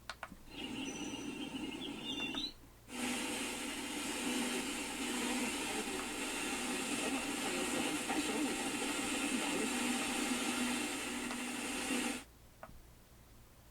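A bedside sound machine's speaker plays its built-in soundscapes, switched with button clicks. There is a short stretch with chirps, then about nine seconds of a steady, even noise track that cuts off suddenly, followed by a faint click.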